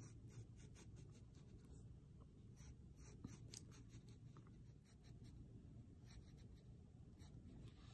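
Faint scratching of a graphite pencil on watercolor paper: a quick, irregular run of short strokes as grid lines are drawn.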